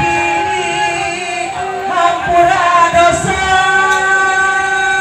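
Music with a solo singing voice holding slow, long notes, some of them wavering with vibrato.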